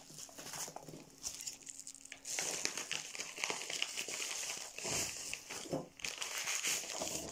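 Plastic packaging crinkling and rustling as bottles are unpacked from a parcel by hand, an irregular crackle that gets busier and louder about two seconds in.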